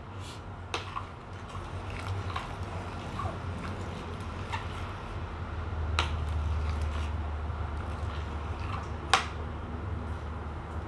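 A metal spoon clinking against a stainless steel pot as sugar is stirred into a simmering curry: a handful of sharp clicks, the loudest about nine seconds in, over a steady low hum.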